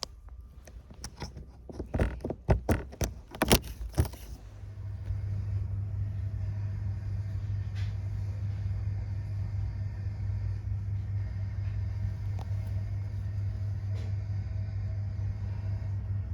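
A few clicks and knocks, then from about four seconds in the steady low rumble of a vehicle engine running, which stops near the end.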